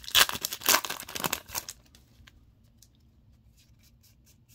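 A trading-card booster pack's foil wrapper being torn open and crinkled by hand. The crackling tear is loud for about the first second and a half, then stops, leaving a few faint ticks as the cards are handled.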